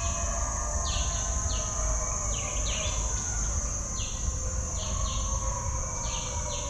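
Tropical forest ambience: a steady high insect drone, with repeated short, high chirping calls coming irregularly about once or twice a second, over a low wind rumble.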